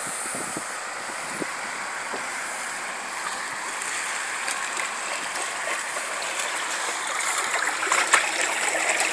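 Choppy river water sloshing and lapping against a concrete wall, a steady rushing with small splashes that grows louder and splashier near the end.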